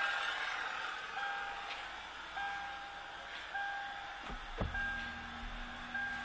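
Toyota Land Cruiser 200's cabin warning chime beeping about once every 1.2 seconds over a steady hiss. About four and a half seconds in come two sharp clicks, then a low steady hum sets in.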